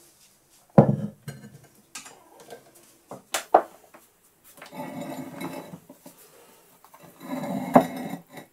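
A small milling machine, a Proxxon FF 230, being set down on a granite slab and shifted into position: a sharp knock about a second in, a few clicks, then two stretches of scraping, the second ending in a knock near the end.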